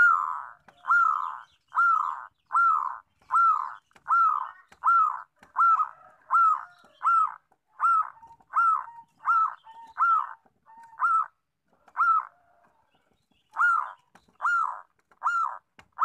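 Zebra dove (perkutut) cooing a long series of short notes, a little more than one a second, with a brief break near the end.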